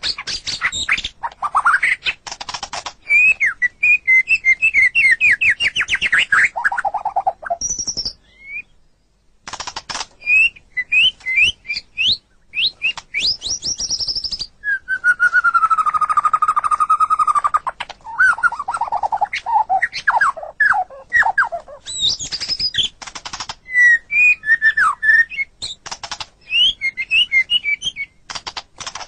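White-rumped shama (murai batu) singing a long, varied song: fast runs of repeated notes, harsh clicking notes, quick downward-sweeping whistles and a held lower whistle, with a short pause about nine seconds in.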